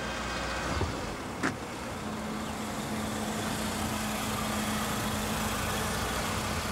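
Citroën Xsara car driving up slowly and pulling in to stop, its engine giving a steady low hum from about two seconds in over a constant street-noise hiss. A short sharp click comes about a second and a half in.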